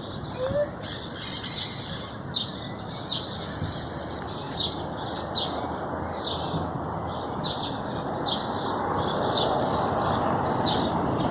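Small birds chirping: short high calls repeated about every two-thirds of a second, over a steady background hiss that gets a little louder toward the end.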